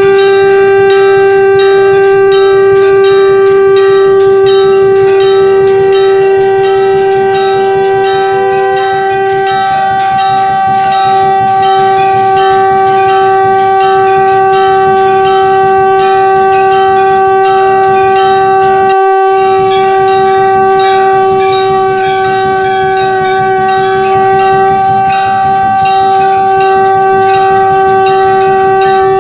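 Shankh (conch shell trumpet) blown in one long, steady note, with a brief break about 19 seconds in. Temple bells ring rapidly behind it.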